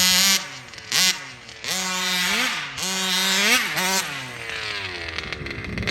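A 1/5 scale RC car's two-stroke gas engine running and revving up and down several times, settling back to a steady lower note between blips.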